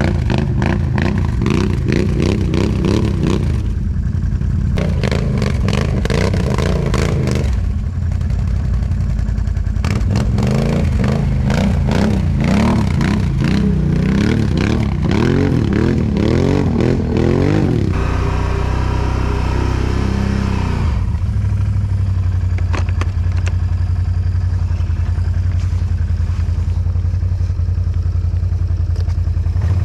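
Off-road ATV engines revving up and down, with clattering, as the quads work through bog mud after getting stuck. About 18 seconds in, the revving gives way to an engine running steadily at low revs.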